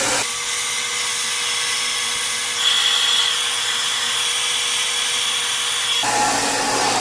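Handheld hair dryer running steadily, blowing onto long hair wound on a round brush. A higher whine joins about two and a half seconds in.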